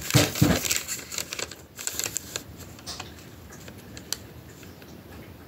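Light clicking and rustling of a paper receipt being handled, loudest in the first half-second, then a few scattered clicks.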